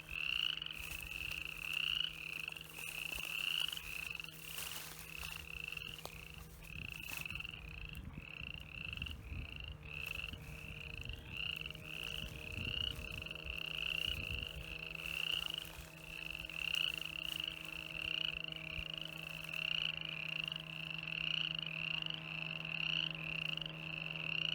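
Frog calling over and over: short, high-pitched calls repeating evenly, about two a second, over a steady low hum.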